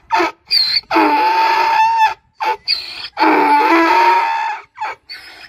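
Donkey braying: a rapid run of short, squeaky in-breath notes broken by two long, hoarse out-breath notes, each lasting about a second or more.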